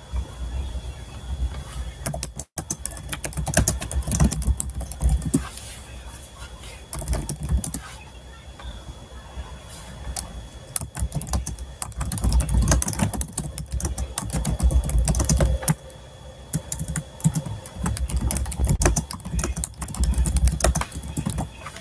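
Typing on a computer keyboard in quick irregular bursts: keys clicking, with low thuds from the keystrokes.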